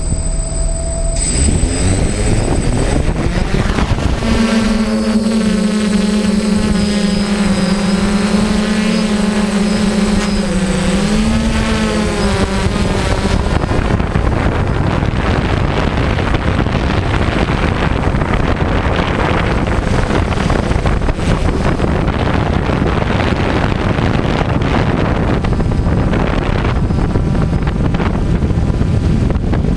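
A DJI multirotor drone's electric motors and propellers, heard through the camera on the drone. They spin up about a second in, and a pitched hum wavers up and down through lift-off and the climb. From about halfway the sound becomes a steady rush of propeller and wind noise in forward flight.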